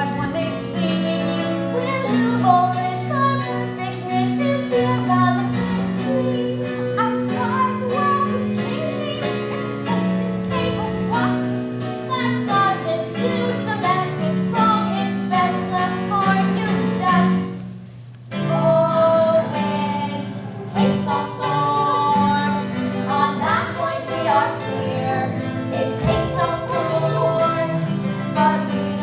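Voices singing a musical-theatre song over instrumental accompaniment, with a brief drop in the music about eighteen seconds in.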